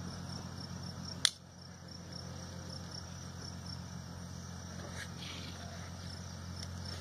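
Insects chirping in a steady, high, evenly pulsing trill over a low steady hum. About a second in there is a single sharp click.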